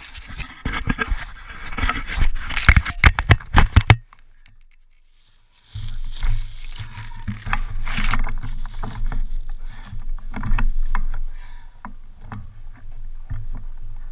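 Handling noise on a camera mounted to a crashed Yamaha YZ400F dirt bike: scrapes and knocks as the bike is moved and lifted out of the grass. There is a short quieter spell about four seconds in, then a steady low rumble with scattered knocks.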